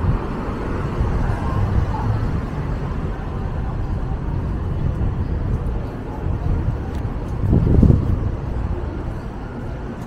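City street traffic: a steady low rumble of cars on the avenue, with one vehicle passing louder about three-quarters of the way through.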